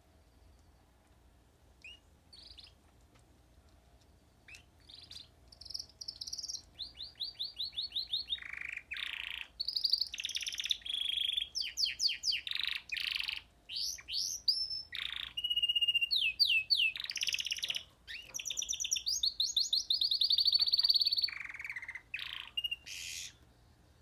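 Canary singing: a few soft chirps, then a long varied song of rapid trills, repeated notes and quick falling sweeps that stops abruptly near the end.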